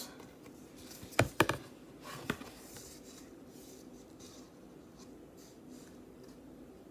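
A stiff cardboard board book being handled and turned over: a couple of sharp taps of the thick pages about a second in and a smaller one shortly after, then faint rubbing of hands on the cardboard.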